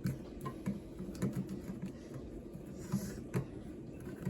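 Hand-cranked can opener being turned around a metal can, its geared drive wheel and cutter wheel working the rim in irregular clicks and low knocks.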